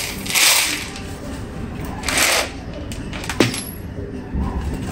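Dry yellow beans rattling and rustling as they are handled and scooped from a glass jar into a plastic bowl, in two short hissy bursts, one near the start and one about two seconds in, with a sharp click about three and a half seconds in.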